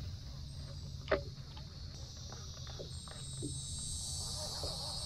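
Steady high-pitched insect chorus, growing a little stronger toward the end, with one sharp click about a second in and a few faint taps.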